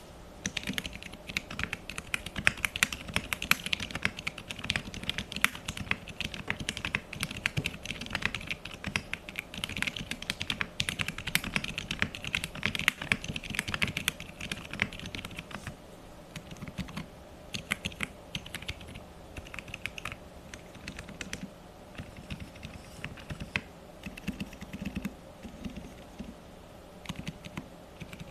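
Typing on a Qwertykeys Neo65 mechanical keyboard with WS (Wuque Studio) silent tactile switches, a POM plate with plate foam and PBT keycaps. Fast, steady typing for about the first half, then slower, scattered keystrokes.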